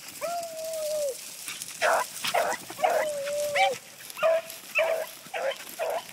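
A pack of hunting beagles giving tongue: two long drawn-out bays, with short, sharp yelps from several hounds between and after them. It is the cry of a hound pack working a scent.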